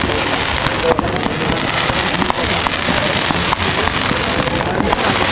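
Fireworks crackling: a dense, continuous fizz of many small pops from crackling golden stars, with a couple of sharper cracks about a second in and about three and a half seconds in.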